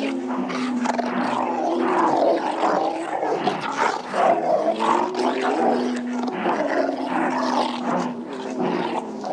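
Several dogs howling at once: held, overlapping howls mixed with rough, snarling calls in a continuous chorus.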